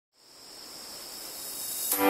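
A steady hiss with a thin, high, steady whine running through it, fading in from silence and swelling gradually louder.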